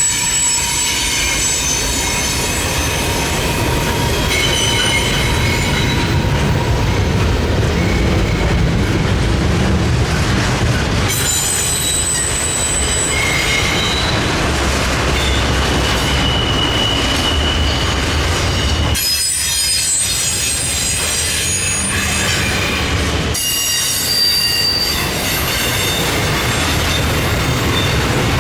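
Freight train rolling past with a steady rumble, its wheels squealing in several high tones that come and go. The sound changes abruptly a few times.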